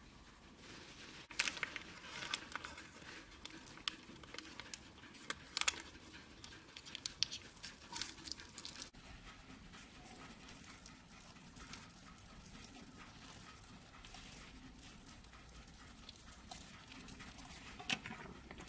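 Faint handling sounds of fingers on soft food over a wooden board: scattered light taps and sticky clicks as salmon slices are pressed onto a cream-cheese-covered spinach omelette sheet and the sheet is rolled up. The clicks are busiest in the first half and grow sparse afterwards.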